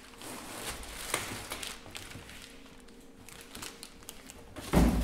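Clear plastic wrapping crinkling and rustling as a 25 kg ME1616 electric motor is lifted out of its cardboard box and handled on a workbench, with a few light knocks and one heavy thump near the end.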